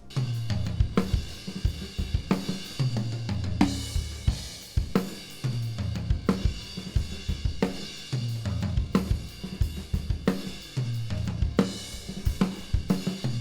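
Acoustic drum kit playing a steady groove of kick, snare, hi-hat and cymbals, heard through the mono room microphone so that the room's sound colours the kit.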